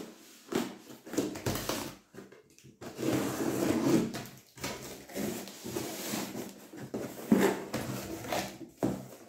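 A cardboard box being opened by hand: a small blade slitting the packing tape, then the tape and cardboard flaps scraping, crackling and knocking as they are pulled open, with a sharp knock about seven seconds in.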